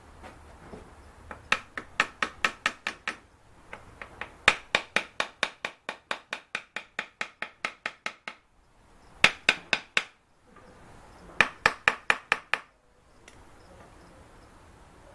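Rapid, sharp hammer taps, about six a second, coming in four bursts, the longest lasting several seconds: rapping the pattern to loosen it in the sand mould before drawing it out.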